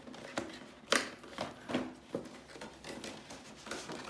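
Clear plastic packaging tray being pulled out of a cardboard box, crackling and snapping in a run of sharp clicks, about two a second, the loudest about a second in.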